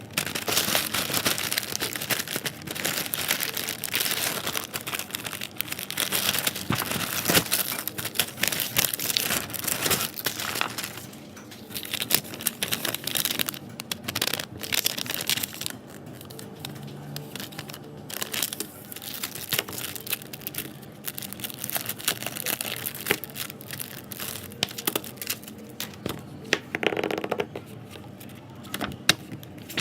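Packaging crinkling and rustling as it is handled and opened, full of small crackles and clicks. It is busy for about the first half and sparser and quieter after that.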